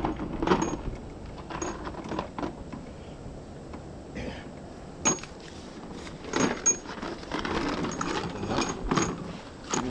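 Irregular metallic clinks and knocks of hands and tools handling parts on an outboard motor's lower unit.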